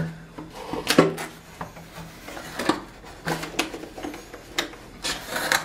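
Door lockset parts being handled in their cardboard packaging: scattered clicks and knocks of hardware and card, over a steady low hum.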